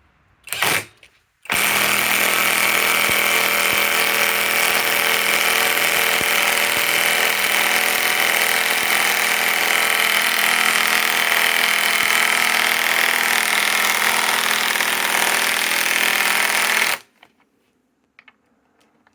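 Hercules HCB84B2 compact cordless impact wrench hammering as it drives a lag screw into thick predrilled wood: a short blip about half a second in, then a steady hammering run of about fifteen seconds that stops abruptly near the end.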